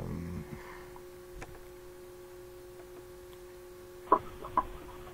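A steady electrical hum with a faint click about a second and a half in, then two sharp clicks half a second apart near the end, the loudest sounds here.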